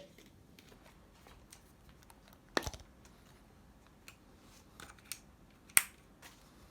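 WE SVD Dragunov airsoft rifle being handled for a reload: a string of light clicks and rattles, with a sharp clack about two and a half seconds in and the loudest clack near six seconds.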